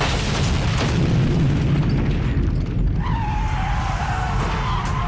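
Cartoon destruction sound effects: a deep, continuous rumble of a highway overpass cracking and collapsing, mixed with dramatic background music. A high, slightly wavering tone joins about three seconds in.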